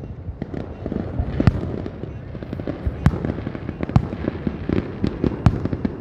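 Aerial fireworks shells bursting in a display: a rapid run of bangs and pops, with a louder boom every second or so.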